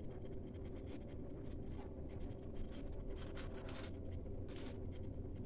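Soft, irregular rubbing and rustling as a hand rubs crushed ginger and garlic over a whole tilapia lying on aluminium foil, the foil crinkling faintly now and then. A steady low hum runs underneath.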